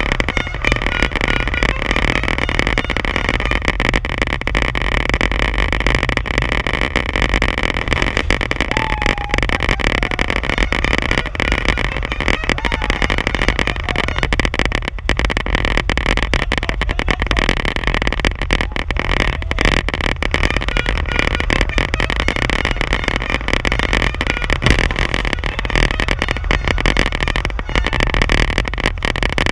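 A dirt-track race car running steadily at speed, heard from a camera mounted on the car itself: constant engine and road noise with crackling rattles and buffeting on the microphone.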